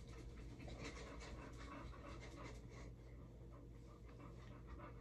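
Faint scratchy rustling of a terry-cloth towel rubbed against the face and damp hair, thinning out after about three seconds.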